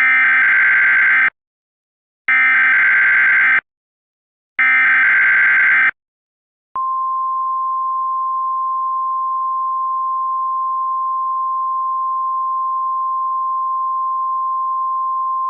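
Three short bursts of EAS SAME header data, harsh electronic screeches each over a second long with about a second's gap between. About a second after the last burst comes the steady single-pitch NOAA Weather Radio warning alarm tone. Together they are the alert signal that opens a new warning message, here a tornado warning.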